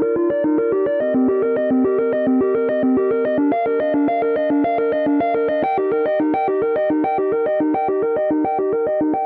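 iPhone iOS 17 ringtone playing: a synthesizer tune of quick, evenly spaced plucked notes stepping through a short repeating pattern.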